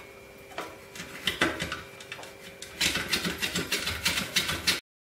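Raw green mango being sliced on a hand-held chip slicer over a stainless steel plate: a few separate scraping strokes, then from about three seconds in a quick run of strokes, about five a second, with slices dropping onto the plate. The sound cuts off abruptly near the end, over a faint steady hum.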